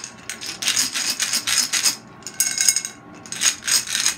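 Individually wrapped Warheads sour candies being rummaged through by hand in a drinking glass, the plastic wrappers crinkling and rustling in several short bursts.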